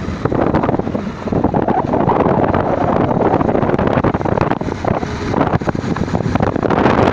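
Wind blasting across the microphone on a moving motorcycle, mixed with the bike's running noise and jolts from a rough dirt road.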